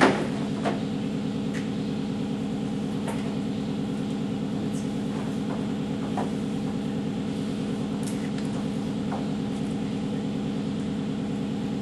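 Steady mechanical hum from shop equipment, with a few sharp knocks at the start and faint light clinks scattered through as a silencing band is fitted around a brake drum mounted on a brake lathe.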